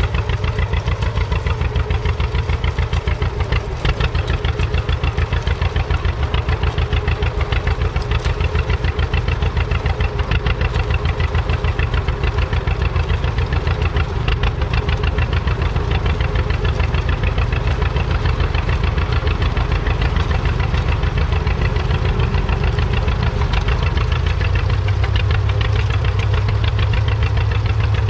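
1940 John Deere BR's two-cylinder all-fuel engine running under load as the tractor pulls a two-furrow plough, a steady, even beat of rapid firing pulses that grows slightly deeper near the end.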